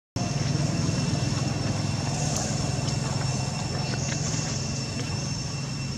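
Steady outdoor background noise: a low hum with thin, steady high-pitched tones over it and a few faint clicks. It cuts in just after the start, following a brief dropout.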